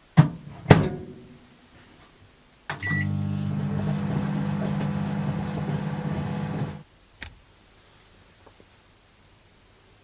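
Microwave oven: two clicks as the door shuts and it is set, a short beep, then about four seconds of steady humming while it runs. It stops with a click near the end.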